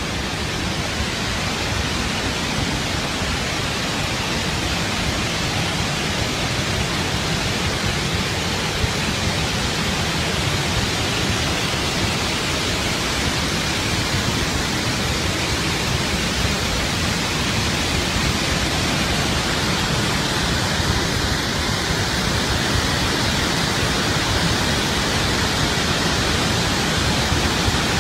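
Muddy floodwater blasting out of a dam's relief valve in a huge spray: a steady roar of rushing water that does not change.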